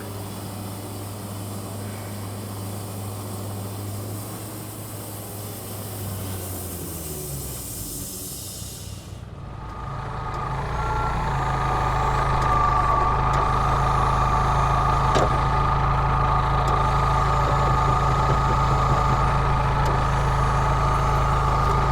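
A machine's steady hum winds down, falling in pitch, and stops about eight seconds in. Then a heavier engine comes up and runs steadily and louder.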